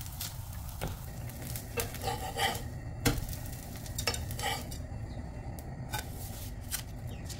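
A steel spatula scraping and tapping on a cast-iron dosa tawa as the cooked dosa is lifted and folded: a series of short scrapes and clicks. Underneath is a low sizzle from the pan.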